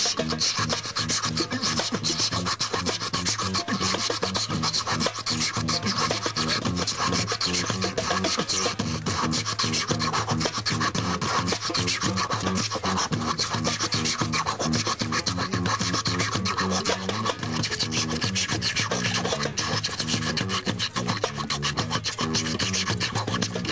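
Beatboxing through a microphone and amplifier: fast, raspy percussive sounds over low pitched notes that shift in steps, running steadily.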